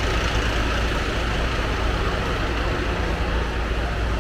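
Heavy vehicle's engine idling: a steady, unchanging low rumble with street noise over it.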